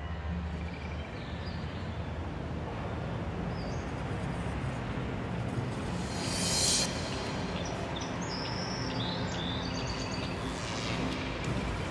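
Steady outdoor background noise with scattered short bird chirps, and a brief hiss about six seconds in.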